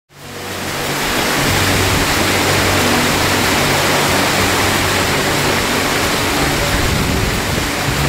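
Fast-flowing river water rushing and churning as white water, a steady full hiss that fades in over the first second.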